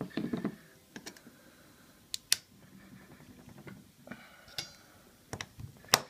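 Irregular small metallic clicks and taps of a screwdriver and a steel coil spring against a scooter's centrifugal clutch shoes as the spring is worked back into its seat. The sharpest click comes just before the end, as the spring goes into place.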